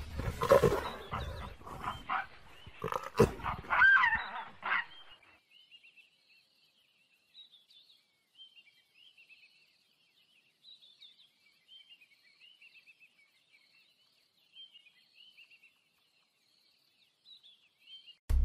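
A leopard growling and snarling as it struggles with a smaller animal, with thumps and a sharp rising and falling squeal about four seconds in. After about five seconds only faint high chirping remains.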